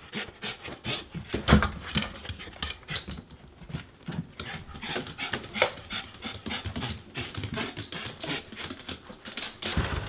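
Small fluffy dog panting: short, quick, uneven breaths, several a second.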